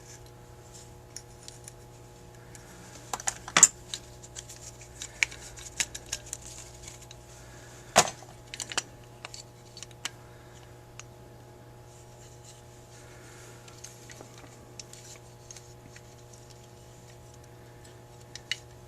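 Small metal parts and tools of a Carter AFB carburetor being handled during teardown: scattered light clicks and clinks, with two sharper knocks, one a few seconds in and one about eight seconds in. A steady low hum runs underneath.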